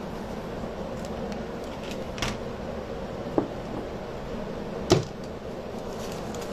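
Three light knocks and clicks of craft supplies being handled and set down on a work table, the loudest about five seconds in, over a steady background hum.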